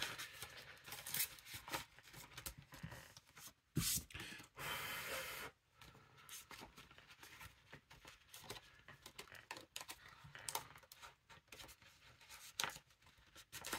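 Faint rustling and crinkling of paper banknotes and clear plastic binder pockets being handled, with scattered small taps and clicks. A sharp tap comes just before four seconds in, followed by a longer rustle lasting about a second.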